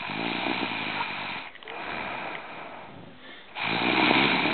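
A sleeping teenage girl's monstrous, heavy snoring: one buzzing snore about a second and a half long, a quieter breath, then a louder snore starting near the end.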